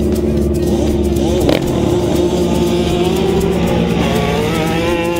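Two racing quad (ATV) engines revving at the start line, then launching. The engine pitch climbs steadily through the second half as a quad accelerates hard down the strip, with a sharp click about a second and a half in.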